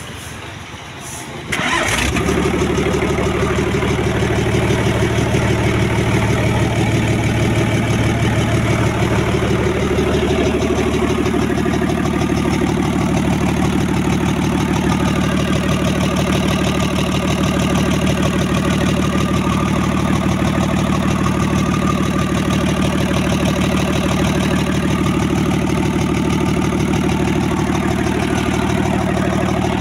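Used truck diesel engine, out of its vehicle, starting about a second and a half in and then running steadily at idle.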